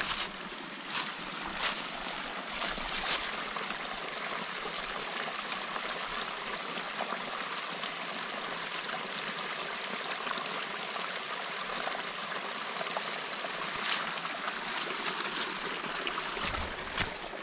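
A stream of running water trickling steadily. Over it come a few sharp steps or knocks in the first three seconds and again near the end.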